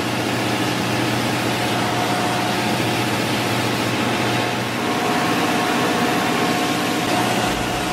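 Steady drone of running engine-room machinery and ventilation aboard a ship, with a few constant humming tones in it.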